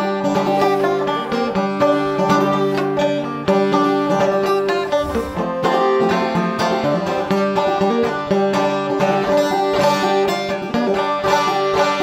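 A resonator banjo played solo: a fast, steady run of picked notes forming an instrumental break in a folk song, with no voice.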